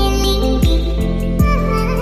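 Background music with a steady beat and a sung melody.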